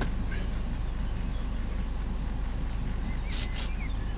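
Heavy motorhome's engine running with a steady low drone. A couple of short high chirps cut in a little over three seconds in.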